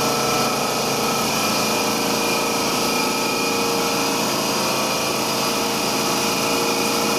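Steady mechanical drone of a running motor, holding one constant pitch.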